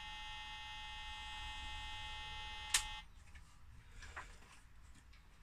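Acorn BBC Master Compact's internal speaker giving a steady continuous beep at power-on: the 'continuous beep of death', the sign of a machine failing to start up. A sharp click is heard, and the beep cuts off about three seconds in.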